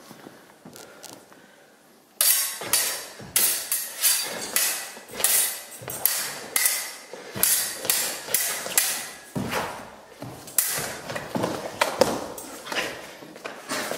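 Steel rapier blades clashing again and again as two fencers attack and parry. Each strike rings briefly, about two a second, starting about two seconds in.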